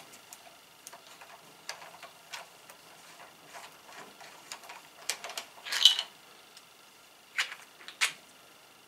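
Scattered light clicks and knocks of a T-handle hex key turning a screw out of a 3D-printed plastic coupling and the coupling parts being lifted apart. A louder rattle comes about five to six seconds in, and two sharp clicks near the end.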